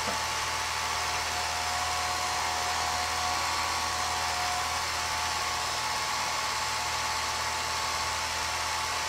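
Film projector running: a steady motor whir with a low hum and a couple of faint steady tones, unchanging throughout.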